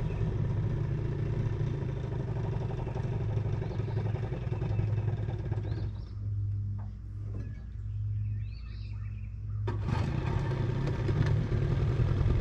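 Vintage Evinrude outboard motor running at a steady idle. About halfway through, the sound turns muffled and thin for a few seconds, with the engine pulsing slowly, then comes back clear all at once.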